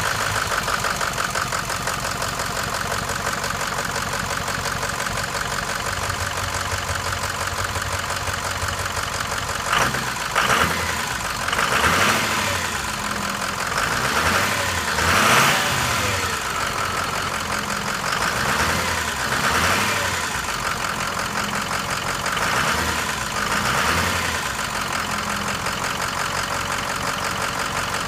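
Ford 6.0L Powerstroke turbo-diesel V8 idling steadily under the open hood, with a few brief swells in level partway through.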